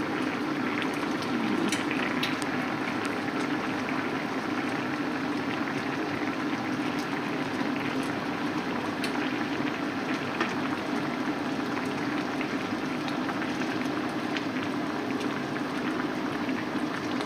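Chicken curry simmering and bubbling steadily in a pan on the stove as it is left to thicken, over a steady low hum.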